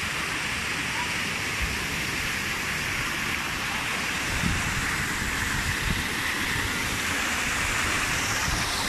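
Steady rush of falling or flowing water from a pool's water feature, an even hiss without let-up.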